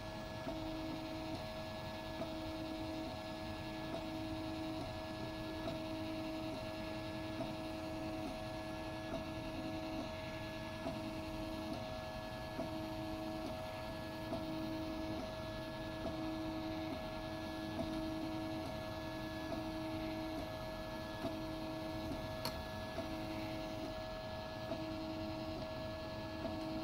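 Ultimaker 3D printer running a print: its stepper motors whine in steady tones, breaking off and restarting roughly once a second as the print head changes direction, over a constant hum.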